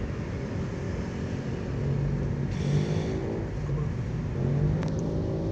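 Car engine and road rumble heard from inside the taxi's cabin, the engine's pitch rising and shifting from about two seconds in as the car accelerates.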